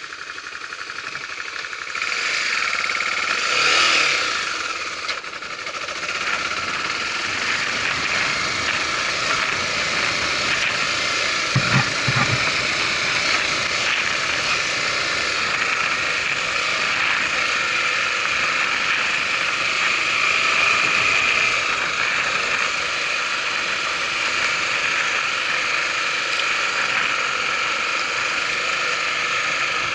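Honda Tornado 250's single-cylinder four-stroke engine running steadily under way, revving up briefly about three to four seconds in. Two short low thuds about twelve seconds in.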